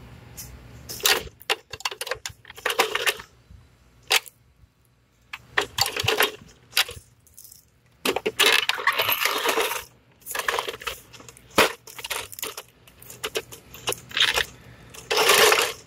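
Handling noise as the plastic pool cleaner is touched and moved at close range. It comes as irregular bursts of rubbing and scraping, some up to about two seconds long, broken by sharp clicks.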